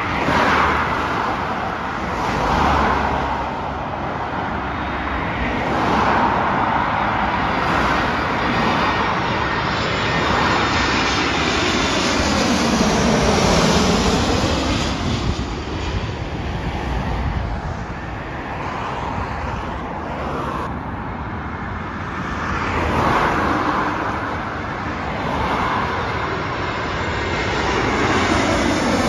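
Cars passing on a road, then a twin-jet Airbus A320-family airliner on landing approach passing low overhead. Its engine noise swells and fades with a sweeping change in pitch around the middle. A second airliner's engine noise builds near the end.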